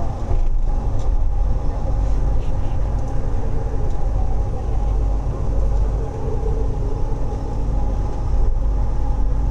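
Kuala Lumpur Kelana Jaya Line LRT train heard from inside the carriage: a steady low rumble and hum with a few faint steady tones running through it.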